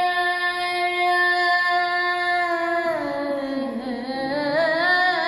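A solo chanter's voice holds one long sung note in an Arabic religious lament (nasheed). After about three seconds it slides down and winds through an ornamented run, then climbs back up.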